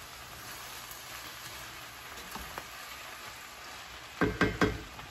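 Chopped chicken for sisig sizzling in a frying pan, a steady frying hiss, while a wooden spatula stirs it. A little after four seconds in, the spatula knocks and scrapes against the pan three or four times, louder than the sizzle.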